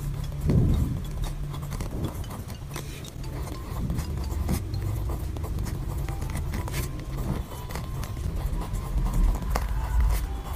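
A pen writing on lined paper: irregular scratching strokes and small taps of the pen tip, over a low rumble and soft thumps of the hand and paper on the desk.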